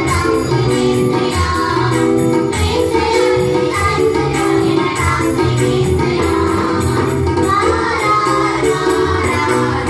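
Group of girls singing a Tamil gospel song together through microphones, over a steady jingling percussion beat.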